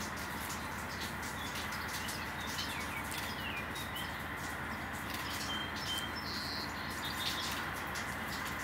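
Songbirds chirping, short high calls and small falling notes scattered through, over a steady low hum.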